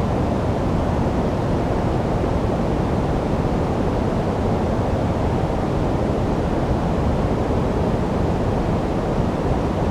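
Steady sleep noise, a deep even rush weighted toward the low end with little high hiss, unchanging throughout.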